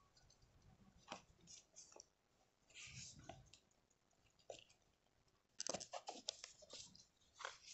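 Faint handling of a cardboard incense box in the hands: scattered soft clicks and scrapes, with a quick cluster of them about two-thirds of the way through.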